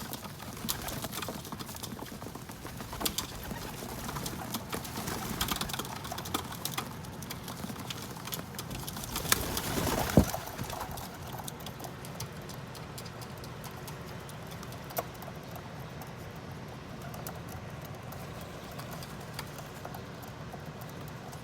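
Pigeons cooing, with many small clicks and taps of pigeons pecking sunflower seeds during the first half and one louder knock about ten seconds in.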